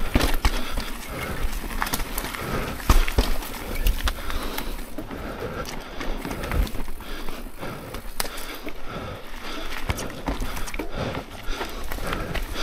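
Mountain bike riding over rough dirt and rock singletrack: tyres rolling on the ground, with frequent sharp clicks and knocks as the bike rattles over rocks and roots.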